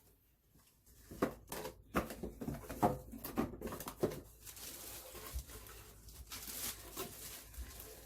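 Handling noises while unpacking: irregular knocks and clicks of plastic vacuum parts, then continuous rustling of the bag the cordless vacuum is stored in, from about halfway in.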